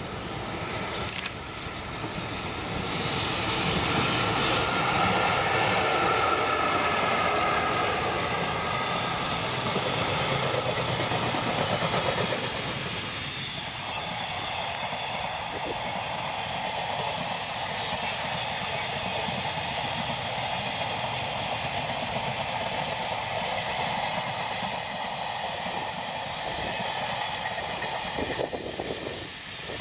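A JR Freight electric locomotive passes, hauling a freight train. It is loudest for the first dozen seconds or so, then the wagons roll by with a steady rumbling clatter.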